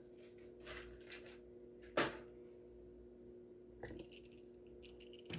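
Faint handling of a die-cast toy car: one sharp click about two seconds in and a few softer clicks and rustles near the end, over a faint steady hum.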